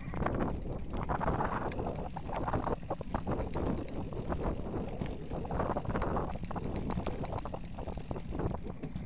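Mountain bike riding over a dirt and gravel track: tyres rolling and crunching, bike and camera mount rattling over bumps, with wind buffeting the microphone in gusts.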